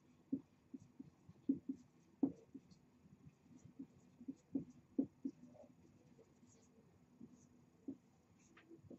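Handwriting: faint, irregular taps and short scratches of a pen on a writing surface, frequent at first and thinning out after about six seconds.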